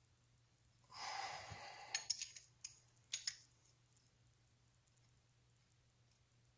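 A brief rustle, then a few light clicks and clinks of small metal parts being handled, followed by near silence.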